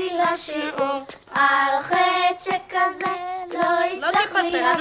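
Children singing a song in Hebrew, some notes held for about a second.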